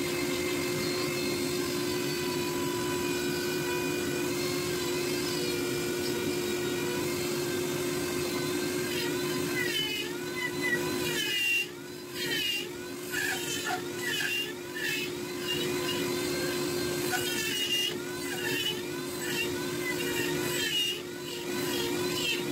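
Flex-shaft rotary tool running with a carving bur, a steady high whine. From about ten seconds in, its pitch and loudness waver up and down again and again as the bur is pressed into the wood in short carving strokes.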